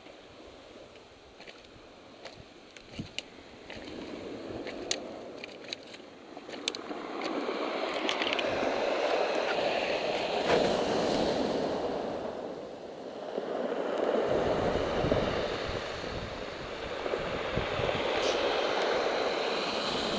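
Surf washing onto a stony beach, swelling and easing with each wave, after a few quiet seconds of scattered light clicks. Wind rumbles on the microphone in the second half.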